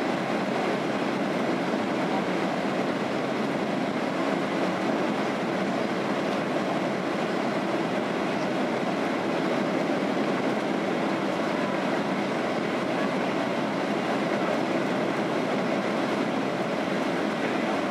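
Steady cabin noise inside a Boeing 767-300 airliner on landing approach with its flaps extended: engine and airflow rush heard from a window seat over the wing, even and unbroken.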